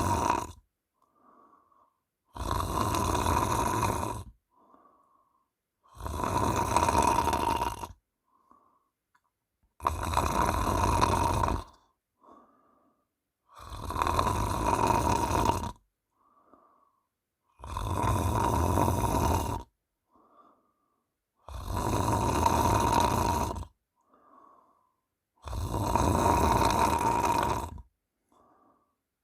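A woman snoring loudly in her sleep. Each snore lasts about two seconds and comes roughly every four seconds, seven in a row, with soft breaths between them.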